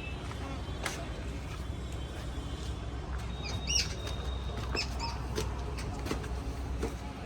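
A small bird chirping a few times near the middle, short curved calls over a steady low rumble, with a few faint clicks.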